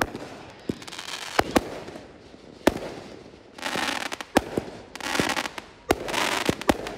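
Aerial fireworks going off: about a dozen sharp bangs at uneven intervals, with spells of dense crackling about halfway through and again near the end.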